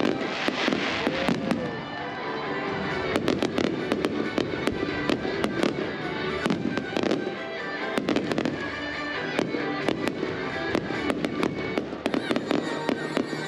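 Fireworks going off in rapid, irregular bangs and crackles, with music playing underneath.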